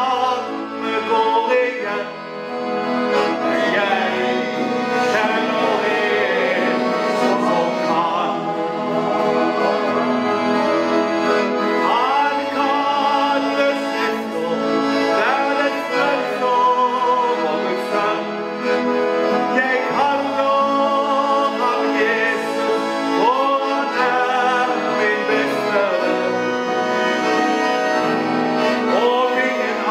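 Piano accordion playing a gospel song, with a voice singing the melody over it.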